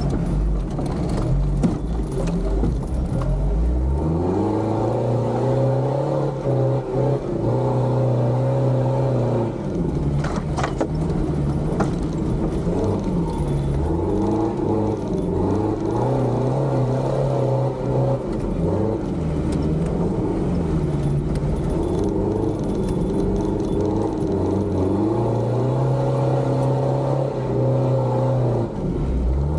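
Toyota off-road competition 4x4's engine, heard from inside the cab, revving up and down repeatedly as it is driven over a trial course. It rises about four seconds in, holds high, eases off and climbs again several times, and drops back near the end.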